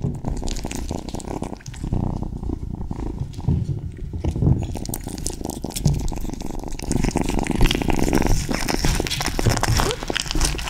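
A kitten licking and chewing a slab of raw tuna: wet smacking and lapping clicks, close to the microphone, thicker from about halfway through, with a low rumble underneath.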